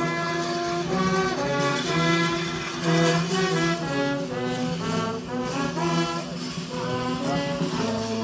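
Brass band playing a slow melody of long held notes, with several brass instruments sounding together.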